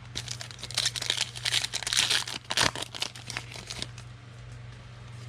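Foil wrapper of a trading card pack crinkling and tearing as it is opened: a dense run of crackles that stops about four seconds in.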